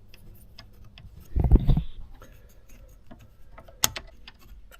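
Light clicks and taps of a steering wheel hub and its nut being handled and fitted onto the steering column, with a dull thump about a second and a half in and a sharp click near the end.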